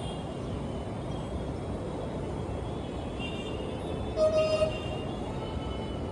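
Steady road-traffic rumble, with a vehicle horn honking briefly about four seconds in.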